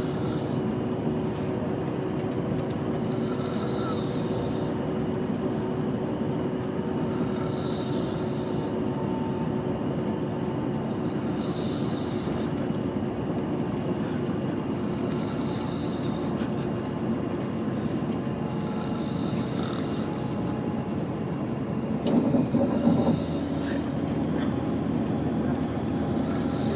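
A woman snoring, one breath about every four seconds, over the steady drone of a moving coach bus. Near the end comes one louder, rougher burst.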